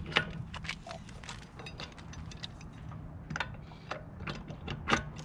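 Socket and long breaker bar clicking and clinking on a car wheel's lug nuts as they are broken loose: irregular sharp metallic ticks, with a louder knock near the end.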